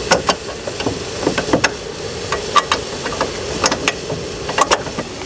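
Irregular metallic clinks and knocks as a bolt is worked into the new strut's lower bracket and the steering knuckle, over a faint steady hum.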